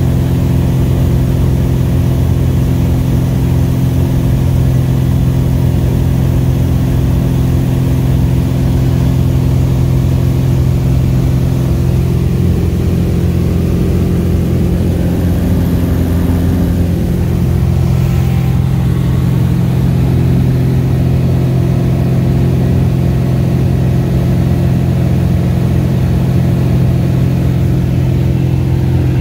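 Single-engine Cessna's piston engine and propeller droning steadily, heard inside the cabin; the tone shifts briefly around the middle.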